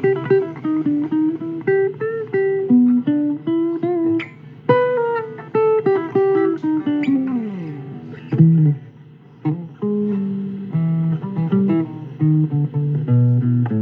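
Guitar music: single plucked notes picked out as a melody, with a long falling slide about halfway through and lower bass notes near the end.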